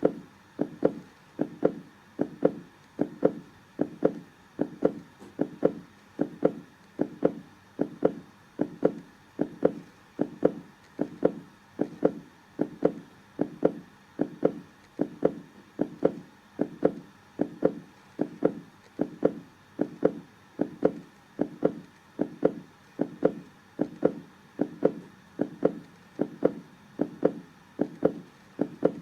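Heartbeat sound: a steady, even rhythm of low thuds, a little more than one beat a second.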